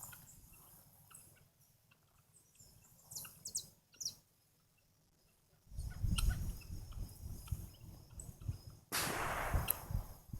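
Helmeted guineafowl calling in short, harsh bursts. A low rumble joins a little past halfway, and a loud harsh call about a second long comes near the end.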